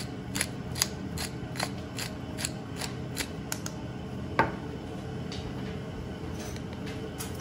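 Hand-twisted pepper grinder grinding pepper: an even ratcheting click about two or three times a second. The clicks stop after about three and a half seconds, followed by a single sharp knock.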